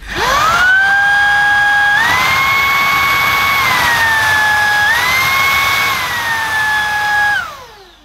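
Shark IZ201UK cordless vacuum's motor spinning up to a steady whine. It steps up in pitch twice as the max-power boost trigger is pulled, easing back to normal power after each, then winds down as it is switched off near the end.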